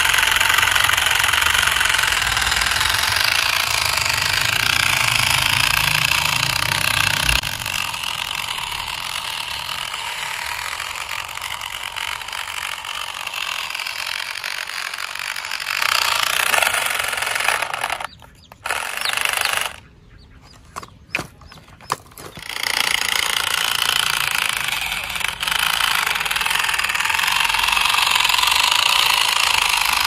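Motors of remote-control toy construction trucks running with a dense mechanical rattle and whir. A low rumble under it stops about a quarter of the way in, and the sound cuts out briefly a few times about two-thirds of the way through.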